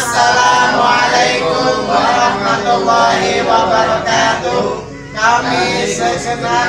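A group of adults and children chanting together in unison, in a sing-song way, with a short pause about five seconds in.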